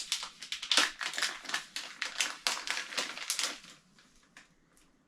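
Packaging rustling and crinkling as it is handled, in a dense run of crackles that dies down about three-quarters of the way through.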